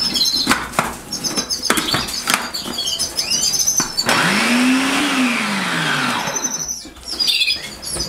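Small electric food processor chopping broccoli, peas and apple: a few short knocks and pulses in the first half, then the motor runs for about three seconds, its hum rising as it spins up and falling as it stops. Canaries chirp in the background.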